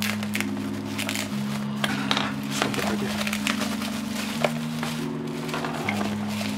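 Plastic bubble wrap crinkling and crackling in irregular bursts as it is handled and pulled open, with one sharper crack about four and a half seconds in. Under it, background music holds low chords that change every second or so.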